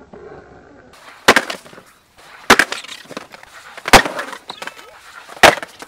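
Skateboard on concrete: its wheels rolling with a steady hiss from about a second in, broken by four loud, sharp wooden clacks of the board, about a second and a half apart.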